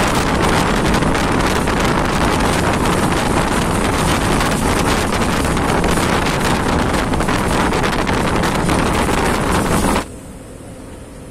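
Wind rushing over the microphone on a moving passenger train, over the train's running noise. It cuts off suddenly about ten seconds in, leaving a much quieter train sound.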